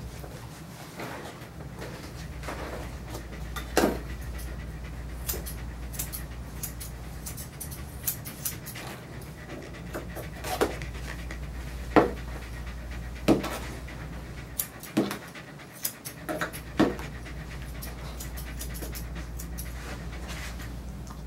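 Dog panting steadily, with a few sharp clicks scattered through and a steady low hum underneath.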